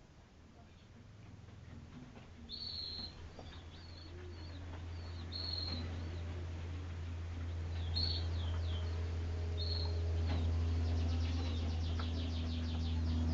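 Canaries chirping in short high notes, breaking into a fast trill near the end, over a low rumble that grows louder.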